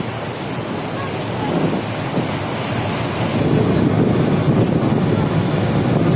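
Wind buffeting the microphone and water rushing past a motorboat under way, a steady noise that grows louder about three and a half seconds in.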